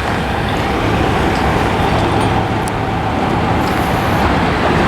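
Heavy truck engine running steadily close by: a dense, even mechanical drone with a faint constant whine over it, growing slightly louder.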